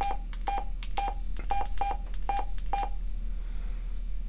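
Keypad beeps from a BTECH DMR-6X2 handheld radio as a UHF frequency is keyed in digit by digit: seven short beeps of a single pitch, each with a key click, ending about three seconds in.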